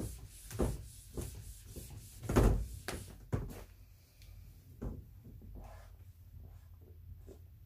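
A cloth wiping a whiteboard, then a few dull thumps and knocks, the loudest about two and a half seconds in. Near the end there are faint ticks of a marker writing on the board.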